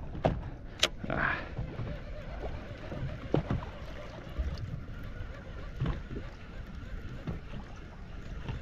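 Water slapping against the hull of a drifting boat, with scattered knocks and clicks.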